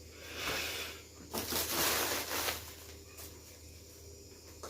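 Packaging rustling and crinkling as it is pulled off the unboxed boombox, in two spells: a short one near the start and a longer, louder one from about a second and a quarter in.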